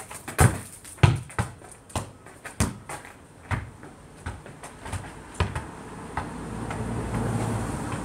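Dull thuds of a football being kicked and bouncing on the ground, about one every half second to second, the loudest about a second in. Over the last couple of seconds a steady low rumble builds underneath.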